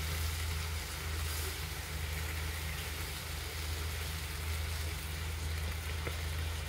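Pork-loin-wrapped eggplant rolls sizzling steadily in a frying pan, over a steady low hum.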